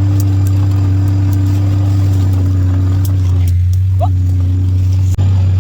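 ATV engine running at a steady speed, a constant low drone.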